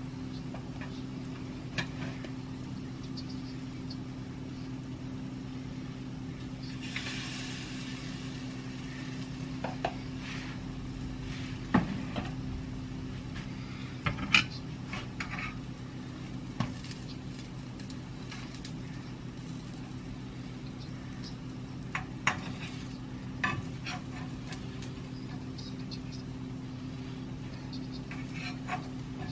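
Cookies deep-frying in a pan of hot oil: a faint sizzle over a steady low hum, with several sharp clinks of a metal fork against the pan and batter bowl.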